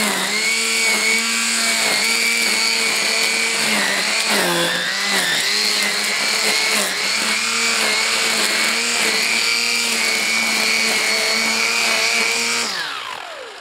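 Parkside PPFSA 40-Li A1 cordless grass trimmer running at full speed, its nylon line cutting grass, with a steady motor whine that dips in pitch briefly about four and a half seconds in. Near the end it is switched off and the whine falls away as the head spins down.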